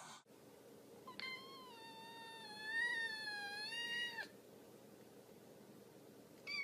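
Domestic cat giving one long, drawn-out meow lasting about three seconds, wavering slightly in pitch.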